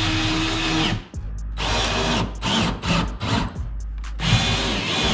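Power drill running in several short bursts, each up to about a second long, with brief pauses between them.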